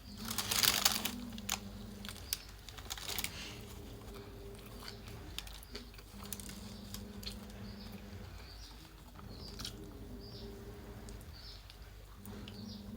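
Close-miked eating of a kota: a loud crunchy bite near the start, then chewing with scattered smacks and clicks. A low hum comes and goes underneath.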